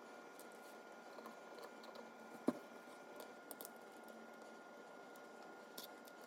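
Quiet room hiss with a faint steady hum, a few soft ticks, and one sharp click about two and a half seconds in.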